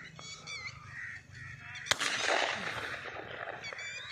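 A single shotgun shot from a Pakistani-made shotgun, a sharp crack about two seconds in followed by a second of rumbling echo that dies away. Small birds chirp briefly near the start and again near the end.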